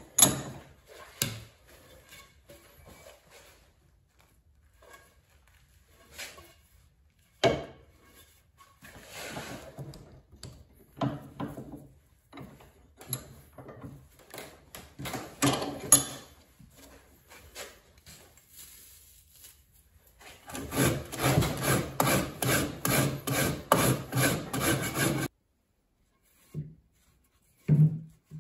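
A wooden ash axe handle being shaped with hand tools: scattered scraping strokes, then a run of quick, close-together strokes about two-thirds of the way in that stops abruptly.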